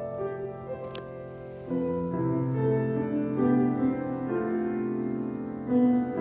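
Mixed choir singing sustained chords with grand piano accompaniment, swelling louder about a second and a half in.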